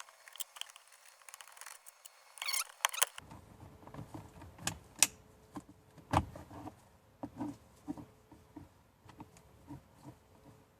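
Irregular clicks, taps and light rattles of a plastic dashboard trim panel being worked loose and its wiring connectors unplugged.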